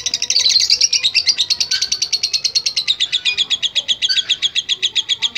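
Lovebird singing a long unbroken ngekek: a fast, even run of sharp chattering notes, about a dozen a second.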